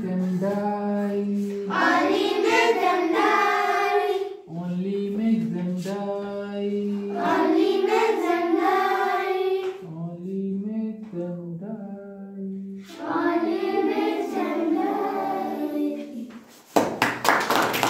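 A group of children singing a rhyme together in unison, in short phrases with brief pauses between them. Near the end the singing stops and they break into clapping.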